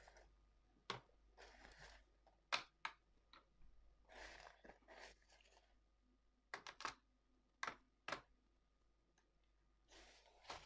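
Pieces of dry grey clay being handled, snapped and set into a plastic container: a series of sharp snaps and clicks, some in quick pairs, with a few short crunchy rustles between them, all fairly faint.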